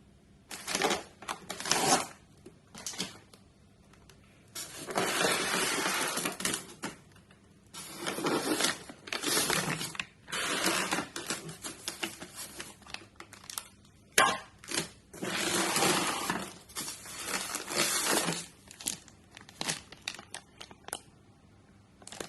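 Packaging being handled and opened: crinkling and tearing in irregular bursts, with a sharp click about fourteen seconds in.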